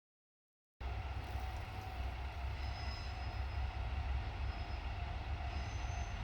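JR Shikoku diesel railcar running, a steady low rumble with a faint higher whine over it. It cuts in abruptly a little under a second in.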